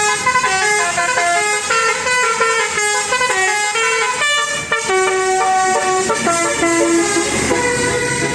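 Telolet bus horn: a set of roof-mounted air-horn trumpets playing a quick melody, several notes sounding together and stepping from pitch to pitch, with longer held notes in the second half.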